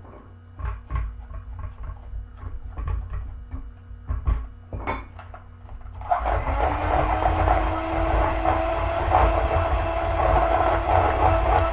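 A few scattered taps and knocks, then an electric hand mixer switches on about six seconds in and runs steadily, beating cake batter in a stainless steel bowl.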